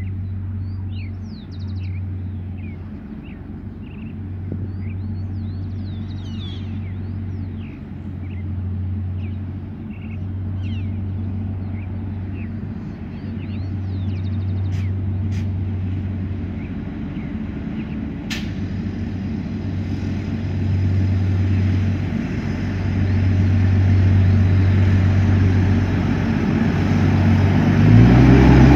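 A rail-mounted track maintenance truck's engine approaching along the line, growing steadily louder and passing close near the end, with a sharp click about two-thirds through. Wind gusts rumble on the microphone.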